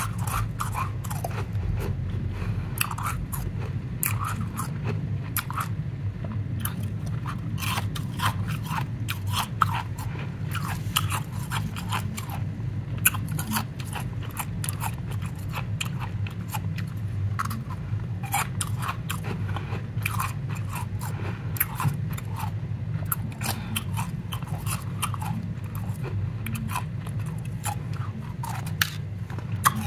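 Chunks of soft, powdery ice crunching and crackling in many quick, irregular cracks, over a steady low hum.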